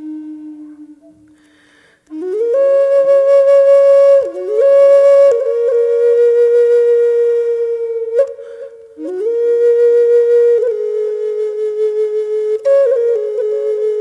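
Background music: a solo Native American flute playing slow, held notes that slide up into pitch. A note fades out near the start, there is a short pause, and a new phrase begins about two seconds in.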